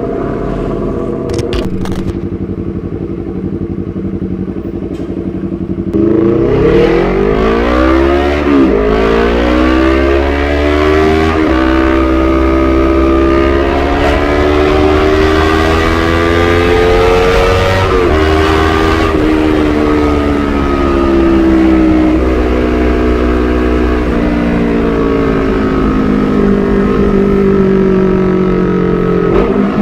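2017 Honda CBR250RR motorcycle with a Proliner TR-1 Short full-system exhaust, running at steady revs, then growing louder about six seconds in as it pulls away. The pitch climbs for several seconds, with short drops at gear changes about nine and eighteen seconds in, then holds and slowly eases off.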